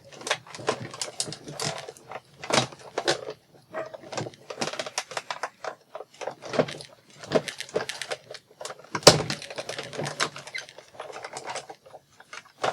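Papercraft handling on a work table: irregular clicks, taps and paper rustles from dies, cutting plates and card stock, with one sharp knock about nine seconds in.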